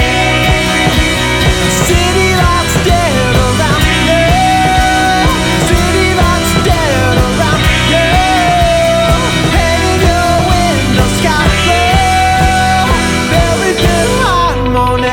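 Rock band music at steady full volume: dense guitar chords over bass and drums, with a wavering lead melody that bends in pitch.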